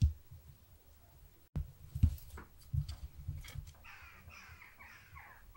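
A bird calling: a quick series of about five calls near the end, each sliding slightly down in pitch. Earlier, a few low thumps, the loudest right at the start and about two seconds in.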